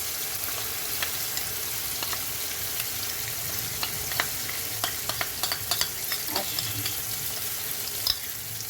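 Softened onion, garlic and tomato sizzling in a frying pan, with a spatula stirring and clicking against the pan in a run of sharp taps from about the middle on.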